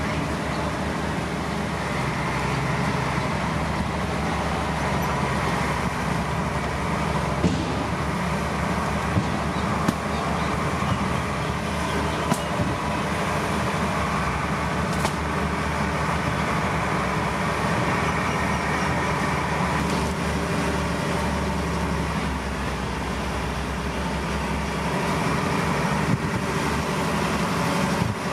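Heavy diesel earthmoving machinery running steadily, with a few short sharp clanks scattered through.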